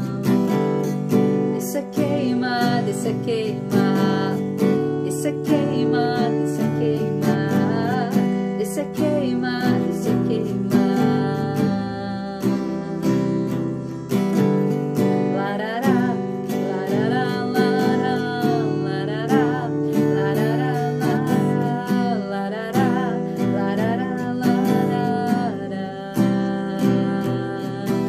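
Acoustic guitar strummed in a steady rhythm, with a woman's voice singing along at times, wavering in pitch.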